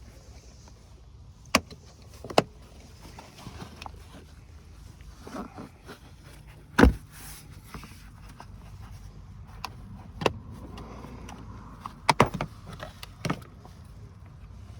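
Scattered sharp clicks and knocks of plastic van interior trim being pried and handled, with clips letting go, about seven in all and the loudest about seven seconds in.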